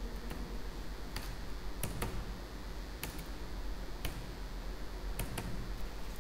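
Computer keyboard being typed on slowly, about eight separate key clicks spaced out with pauses, over a steady low hum and hiss.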